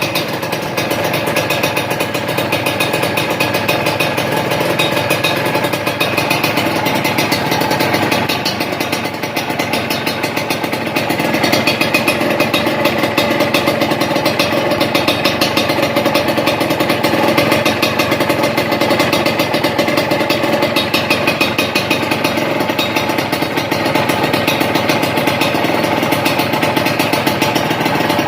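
Suzuki TS125's single-cylinder two-stroke engine running at a steady idle through an aftermarket stainless-steel Triton RS-5 exhaust, with a brief dip around nine seconds and slightly louder running from about eleven seconds.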